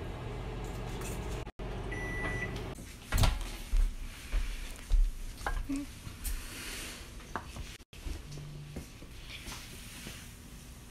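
Microwave oven running with a steady low hum, then one beep about two seconds in as the cycle ends and the hum stops. The door is then opened and the paper cup is handled on the glass turntable, with a run of knocks and clatter.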